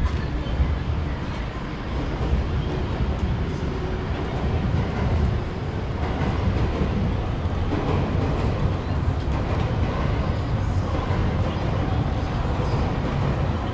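A train running past on railway tracks: a steady low rumble with a constant hiss, without a clear rhythm of wheel clicks.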